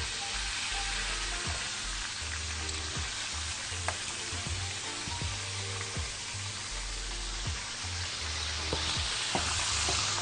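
Hot oil sizzling steadily around kofta cordon bleu deep-frying, with scattered pops and crackles. The sizzle grows louder near the end.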